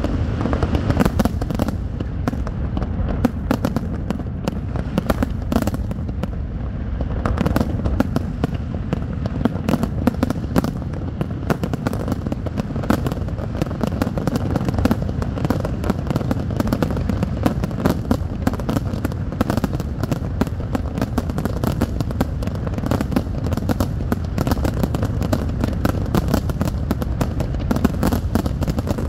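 Fireworks display: a dense, continuous barrage of shell bursts and crackle, many sharp bangs a second with no pause.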